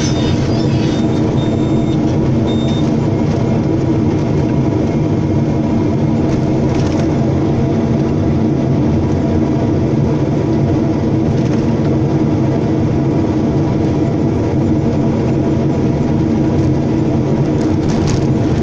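Hyundai hydraulic excavator's diesel engine running steadily while the machine digs a trench, heard from the operator's cab.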